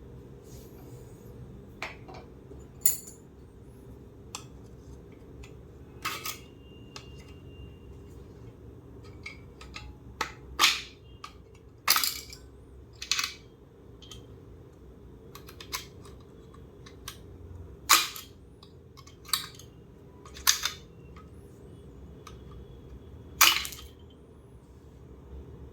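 Irregular sharp clicks and knocks of hard parts and tools being handled while a Philips steam iron is taken apart, about fifteen in all, over a steady low hum.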